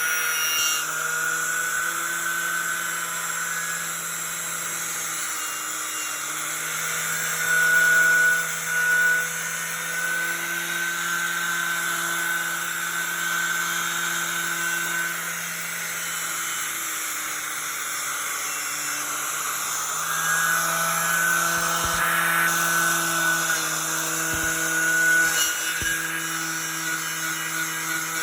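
Milwaukee 11-amp angle grinder with a twisted knotted wire wheel running steadily, stripping paint and rust from a metal door. Its high whine sags a little at times under load, with a few louder stretches.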